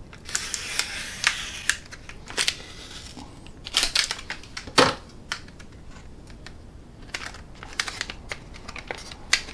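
Hard plastic and metal tool parts being handled: rustling for the first couple of seconds, then irregular sharp clicks and clacks.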